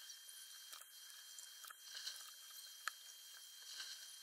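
Faint scattered small clicks and ticks over a steady high-pitched whine and light hiss; no thunder.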